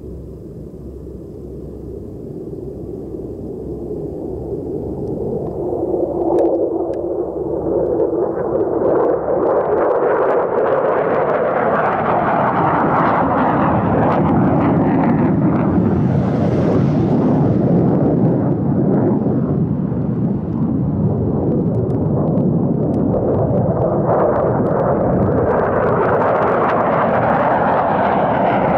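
Fighter jet engine noise that rises over the first several seconds to a loud, steady rumble and stays loud, with a short dip about two-thirds of the way through before it builds again.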